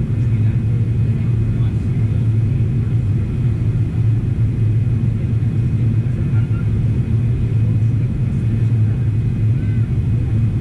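Steady low rumble of a Boeing 777-300ER's engines and airflow heard inside the passenger cabin during the descent to landing.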